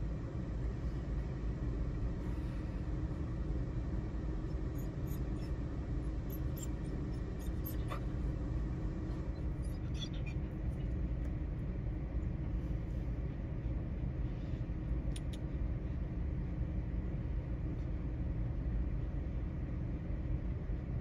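Steady low rumble of a moving car heard inside the cabin, with a few faint light clicks.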